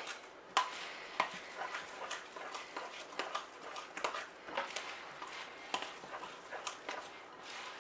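Beer bread batter being stirred in a large glass mixing bowl: irregular scrapes and light clicks of the utensil against the glass, about two a second.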